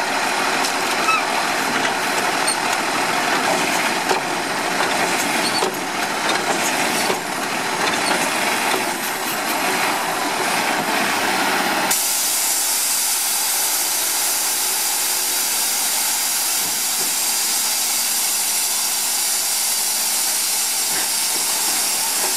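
Diesel Labrie Automizer side-loader garbage truck running while its hydraulic arm grips a cart and lifts it over the hopper, with mechanical clatter and clicks. About halfway through the sound changes abruptly to a steady hiss.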